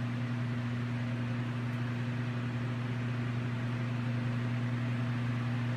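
Walk-in cooler's refrigeration unit running: a steady low hum under an even hiss of moving air.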